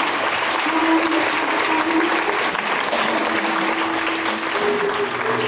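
Audience clapping, a dense steady patter of many hands, with the slow dance music's held notes playing underneath.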